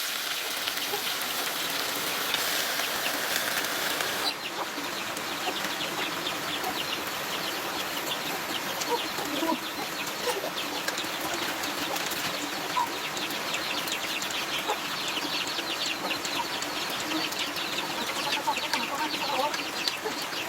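Chickens clucking. A steady hiss cuts off abruptly about four seconds in, and many small, light ticks follow.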